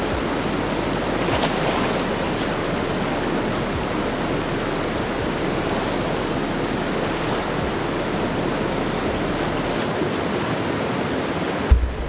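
Shallow, rocky river flowing over stones: a steady, even rush of water. A brief low thump comes near the end.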